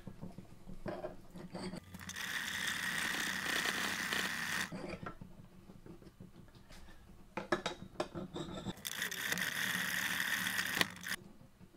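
Hand file rasping across the end of a brass connecting rod clamped in a vise, rounding a radius against a washer guide. Two spells of steady filing a few seconds apart, with light handling clicks between them.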